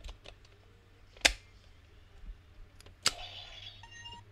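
Plastic clicks as a disc is loaded into a Hiden Kaisekiki Inroumaru sentai toy, with a sharp snap about a second in and another near the end. The second snap is followed by short electronic tones from the toy's speaker.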